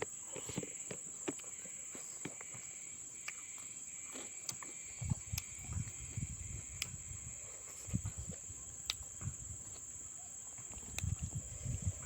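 Eating sounds close to the microphone: soft clicks and smacks of chewing fish head, with clusters of low thumps about five seconds in and again near the end, over a steady high-pitched whine.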